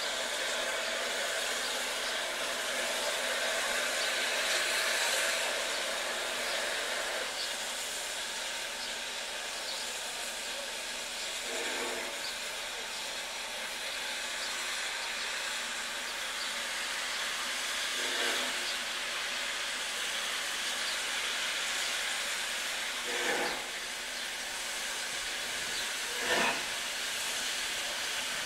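Steam locomotive hissing steadily, with a handful of heavy exhaust chuffs that come closer and closer together as it starts to pull away.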